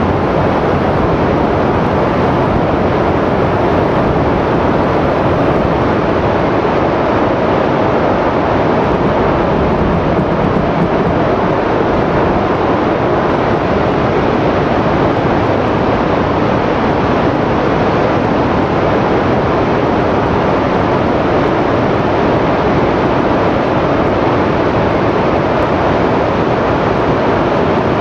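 Muddy water released from a dam's bottom outlet rushing down a rocky gorge, a loud, steady, unbroken rush.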